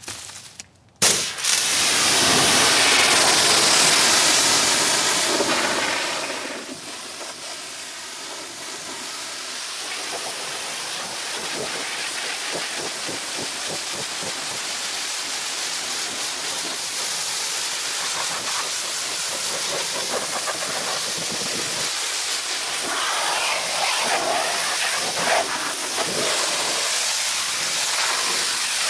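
Pressure washer jet blasting dried mud off a pickup's fender, wheel well and tire: a loud steady hiss of spraying water that starts suddenly about a second in, drops to a softer, steady spray after about five seconds, and swells again a little near the end as the jet moves over the wheel.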